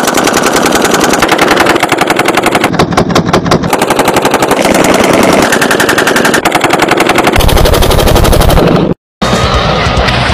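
Light machine gun firing long, rapid bursts of automatic fire, shots following each other too fast to count. The firing stops abruptly about nine seconds in, and a different, noisier sound follows.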